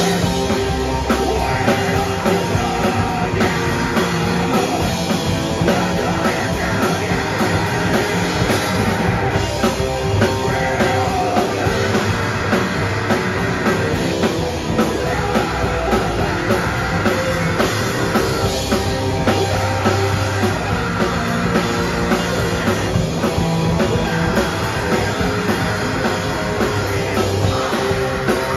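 Live rock band playing loudly: electric guitars, bass guitar and drum kit, with a vocalist singing into a microphone.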